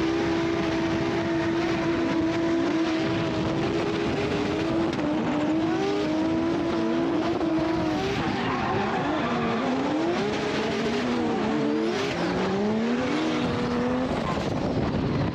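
Drift cars running sideways: an engine note held steady for several seconds, then rising and falling as the throttle is worked, over constant tyre noise and squeal.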